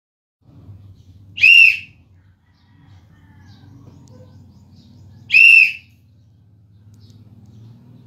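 Referee's whistle blown twice in short, sharp blasts about four seconds apart: the whistle that goes with the volleyball "team to serve" signal.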